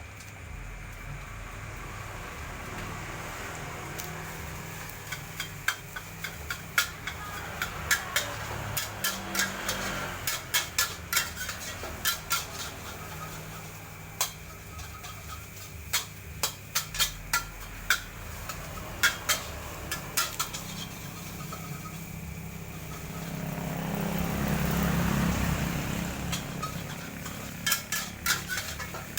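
Metal spatula striking and scraping a wok in irregular clusters of sharp clanks, as in stir-frying fried rice. Near the end, a rush of noise swells up and fades over a couple of seconds.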